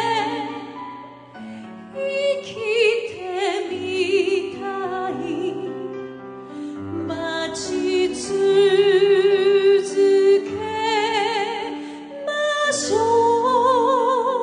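A song sung by a woman, long held notes with a strong vibrato over sustained instrumental accompaniment.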